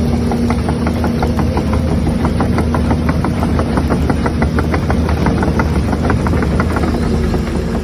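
Huina RC excavators running as they crawl on their tracks: a steady engine-like drone with a regular knocking, about five or six knocks a second.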